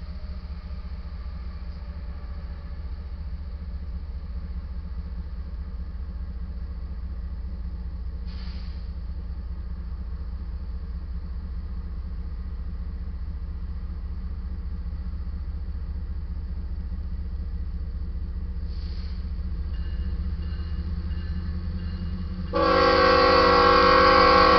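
Low, steady rumble of diesel locomotives, slowly growing louder. About two seconds before the end a loud multi-tone locomotive air horn starts and is still sounding at the end.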